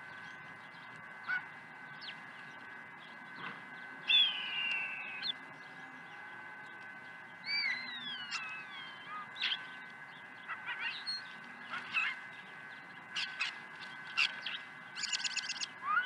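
European starlings calling: a mix of whistles, including falling slurred whistles, a loud nasal call and short clicks, ending in a fast clicking rattle. A faint steady high hum runs underneath.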